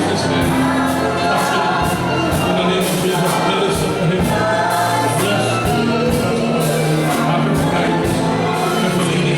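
Gospel singing by a choir or congregation with a band, over a steady beat of about two a second.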